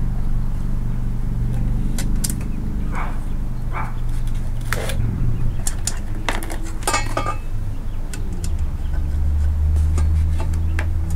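Light clicks and clinks of metal and plastic parts being handled while a short-shifter box is assembled by hand, busiest in the middle. Under them a steady low rumble, swelling near the end.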